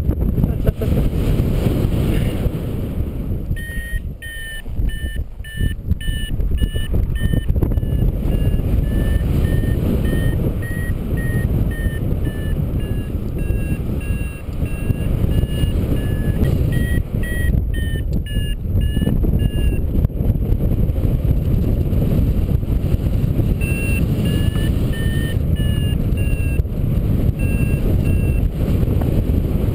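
Paragliding variometer beeping in short repeated tones whose pitch drifts slowly up and down: the sign that the glider is climbing in lift. The beeps stop for a few seconds about two-thirds through, then start again. Heavy wind noise on the microphone runs underneath.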